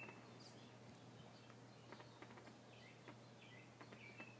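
Near silence: faint room tone with a steady low hum, a few faint clicks and short faint chirps.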